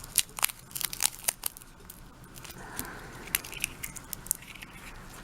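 Sticky tape being peeled off a lock: a quick run of sharp crackles and clicks that thins to scattered clicks after about a second and a half.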